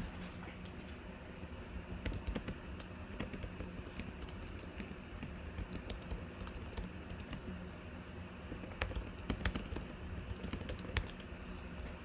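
Typing on a computer keyboard: irregular key clicks, with a quicker, louder flurry about nine seconds in, over a steady low hum.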